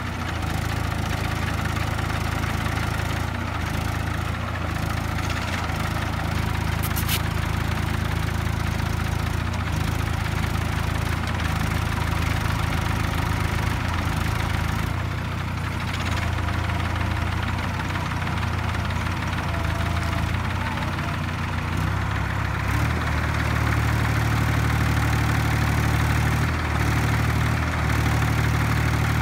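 Diesel tractor engines running steadily, getting louder about 23 seconds in.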